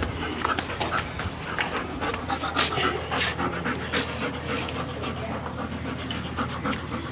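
A Labrador retriever panting rapidly, with scattered light clicks and rattles throughout.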